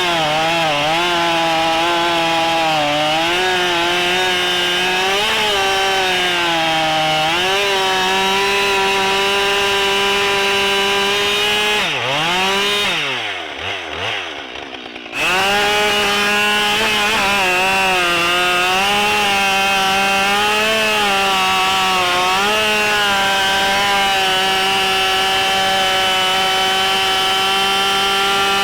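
Husqvarna 572 XP two-stroke chainsaw running at full throttle while cutting through big ash logs, its engine note dipping and recovering as the chain loads up in the wood. About halfway the engine speed falls away and the sound drops for a couple of seconds, then comes back suddenly at full speed.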